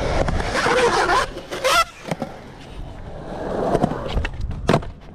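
Skateboard wheels rolling on a concrete skatepark bank. The rumble is loud for the first two seconds, fades, swells again as the rider carves back down, and a sharp clack of the board on the concrete comes just before the end.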